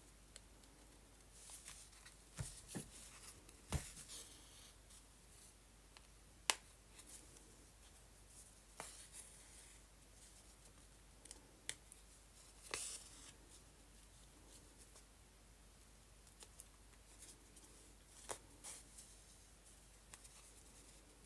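Hand stitching through paper with an embroidery needle: faint scattered clicks as the needle pokes through the paper and soft rustles as the thread is pulled and the paper handled.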